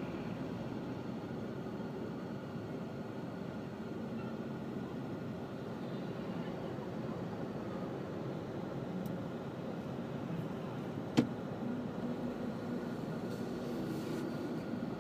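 Steady city street background noise, a low traffic hum with no clear single source, and one sharp click about eleven seconds in.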